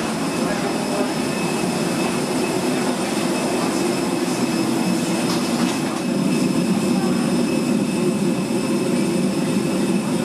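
Airliner ground noise at the gate: a steady rumbling hum with several thin, high whining tones above it.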